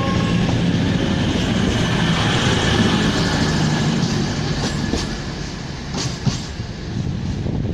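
A train moving along the platform: a steady rumble with a low drone, easing off after about four seconds, then several sharp clicks of wheels passing over rail joints.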